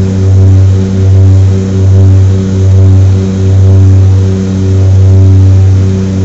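Turboprop airliner's engines and propellers droning as heard inside the cabin during the climb after takeoff: a loud, steady low hum that swells and dips in a slow even throb about once a second, the beat of propellers turning slightly out of step.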